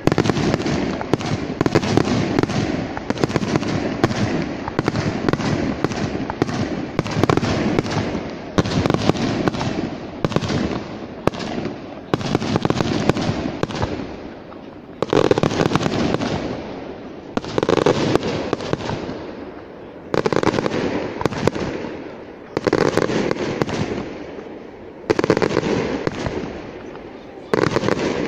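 Aerial firework shells bursting: for about the first half a dense, continuous barrage of bangs and crackles, then single loud bursts about every two and a half seconds, each dying away before the next.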